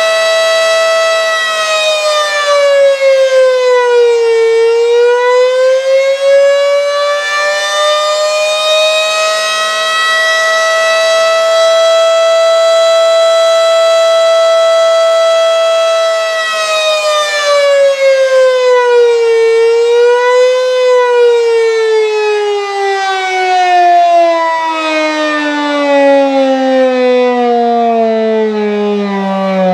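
Federal Signal Model 5 warning siren sounding the attack signal: its tone holds steady, dips and climbs back twice, then falls steadily over the last several seconds as the siren winds down. It sounds weak and rough, which the uploader puts down to an underpowered variable-frequency drive running its motor.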